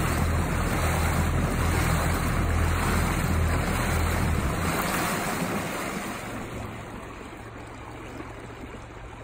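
Boat motor running with a low, steady hum that cuts off about four and a half seconds in. The rush of water and wind then fades as the boat glides on.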